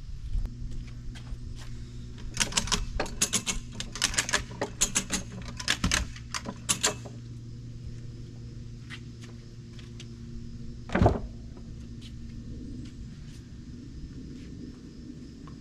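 A steady low engine hum with a quick run of sharp clicks and knocks, then one louder knock about eleven seconds in.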